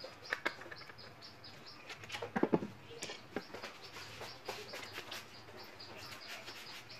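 Small plastic clicks and knocks as a power strip's plastic casing is unscrewed and pulled apart with a screwdriver, with the loudest knocks about two and a half seconds in. A faint string of short high chirps repeats in the background.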